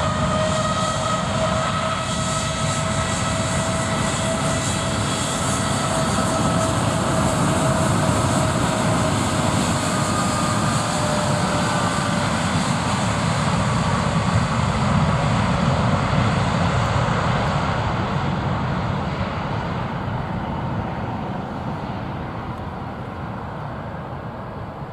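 Airliner's engines running loud as the aircraft passes, a steady whine over the engine noise. The whine fades about halfway through, and the whole sound dies away over the last several seconds.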